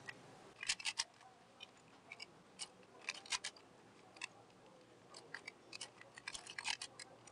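Square-1 puzzle being turned by hand: quiet, irregular plastic clicks in small quick runs as its layers are twisted, coming thicker near the end.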